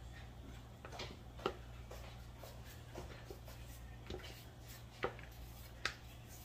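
Kitchen knife cutting through green bean pods held in the hand, making sharp snapping clicks about six times at uneven intervals, with a steady low hum underneath.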